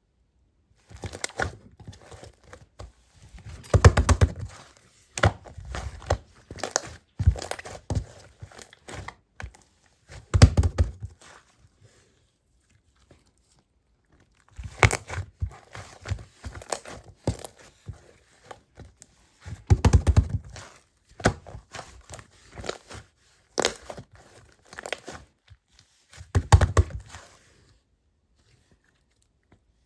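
Slime being squished, stretched and poked by hand, making dense irregular crackling and clicking with several louder, deeper pops. It pauses briefly twice.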